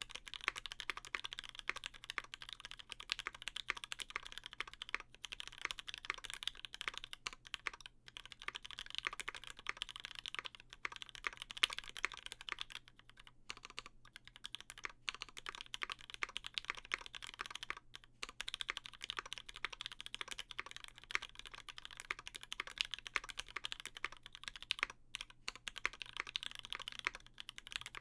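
Steady, fast typing on a Percent Studio Skog-Reboot mechanical keyboard with lubed Gateron Ink linear switches, an aluminium plate and GMK keycaps, dampened with silicone between PCB and plate. The key clacks come thick and continuous, with a few brief pauses, and have a tone the builder still finds a bit hollow.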